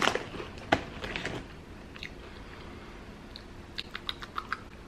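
A person biting into and chewing crunchy Flamin' Hot Cheetos: two sharp crunches in the first second, then quieter chewing with a run of small crackles near the end.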